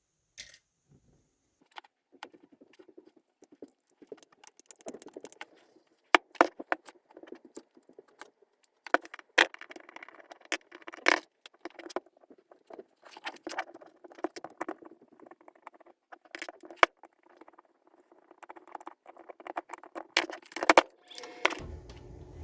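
Small metal parts of an angle grinder clicking, clinking and scraping as it is taken apart by hand: an irregular run of sharp clicks with rattling in between. A steady hum comes in about a second before the end.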